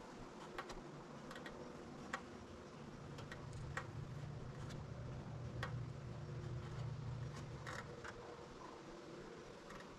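Faint, scattered clicks and light creaks of hand work on a wooden window frame, under a low hum that swells up about three seconds in and fades again near the end.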